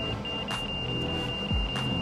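Van's RV-10 stall-warning tone in the headset intercom: a high beeping that turns into a steady tone shortly in, the sign of the airplane nearing the stall as it is held off just above the runway. Steady engine and cabin noise lies under it, with a low thud near the end.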